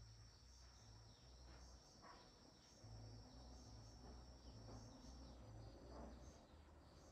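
Faint high insect trilling with pulsing chirps, typical of crickets in early autumn, over a low, uneven rumble.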